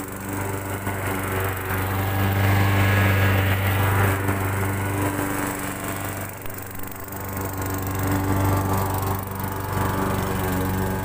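Gas-powered walk-behind push mower running steadily while mowing, its engine note swelling and fading in loudness as it moves about the yard.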